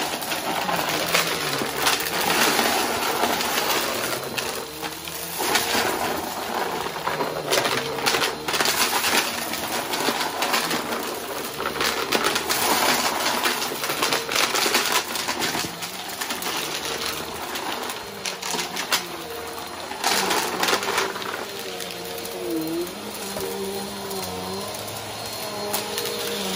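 Bagless upright vacuum cleaner running over carpet as it sucks up a mix of small hard debris, which clatters and rattles through the nozzle into the dust cup in uneven bursts.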